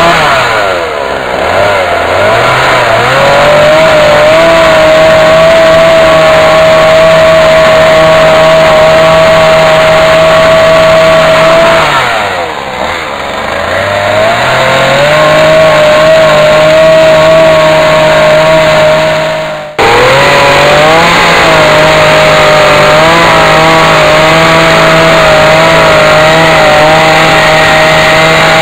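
Two-stroke chainsaw running at high revs as it cuts lengthwise along a hewn log. It eases off and revs back up twice, and the sound breaks off abruptly for an instant about two-thirds of the way through before carrying on.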